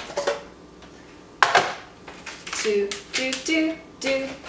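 Light plastic knocks and a short loud crackle of plastic packaging as a slice of vegan cheese is taken out, then a woman humming a few short notes in the second half.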